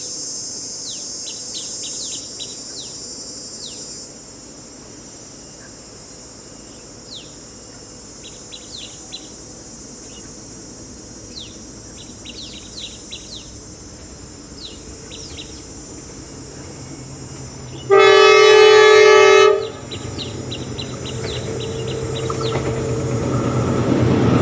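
Insects droning and birds chirping, then at about 18 s a Dongfeng 11 diesel locomotive sounds its horn once for about a second and a half. After the horn the locomotive's engine rumble grows steadily louder as the train approaches.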